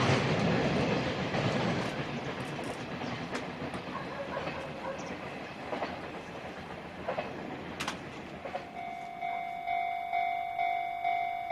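A freight train rolling past, its wheel noise and clickety-clack fading away. About nine seconds in, a Japanese level-crossing alarm starts ringing, a repeating electronic ding about twice a second.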